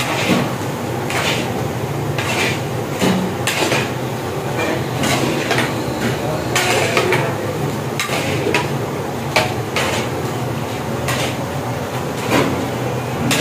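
A large metal spatula scraping and knocking against a big metal cooking pan while thick carrot halwa is stirred and mixed. The scrapes and clanks come irregularly, about one every half second to a second, over a steady low hum.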